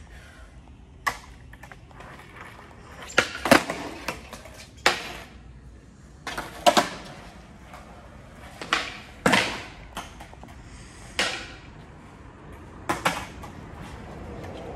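Skateboard cracking against a concrete floor again and again as tricks are tried: about a dozen sharp cracks, several in quick pairs, each with a short echo.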